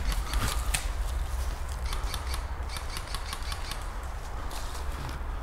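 Footsteps moving quickly through thick dry leaf litter, a quick irregular run of crunching and rustling steps.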